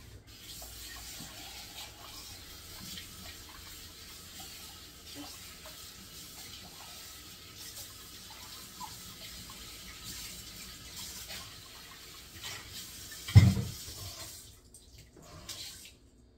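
Kitchen faucet running into a stainless steel sink as a cup is rinsed out, with one loud thump near the end; the water stops soon after.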